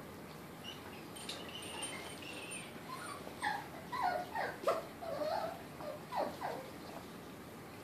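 Miniature pinscher puppy whining: a string of short, falling whimpers starting about three seconds in and lasting a few seconds.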